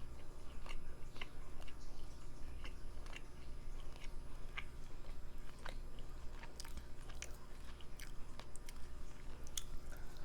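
Close-miked chewing of soft food such as curry, rice and naan, with many scattered wet mouth clicks and smacks.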